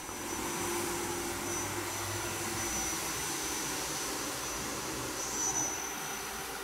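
CNC lathe running a cut with flood coolant spraying inside its enclosure: a steady, fairly quiet wash of spray noise with a thin high tone running through it.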